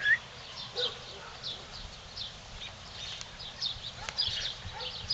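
Puppies playing, with a short rising squeak at the start and a few faint yips, while small birds chirp on and off in the background.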